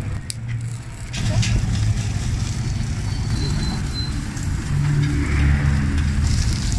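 A motor vehicle's engine running close by, a low rumble that grows louder about a second in and again past the middle, with a few sharp clicks near the start.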